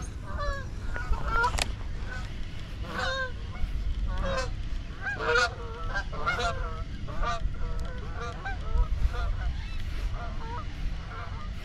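A flock of geese honking as it flies over, with many short calls overlapping and thinning out near the end. Wind rumbles on the microphone underneath.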